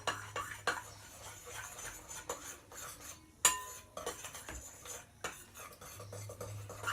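A utensil stirring a thick slime mixture of glue and shaving foam in a bowl, scraping and clinking irregularly against the sides, with one sharper knock about three and a half seconds in.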